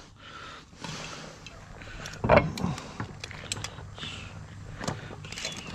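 Handling sounds at a steel pot of boiling salt water on a portable gas stove: the lid comes off and metal tongs click and scrape against the pot as mud crabs, boiled for about 16 minutes, are lifted out. A louder metallic knock with a brief ring comes about two seconds in.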